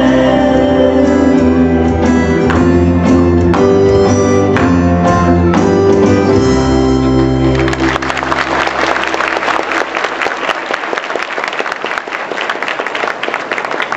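Music with held chords and a bass line ends about halfway through, and an audience then applauds.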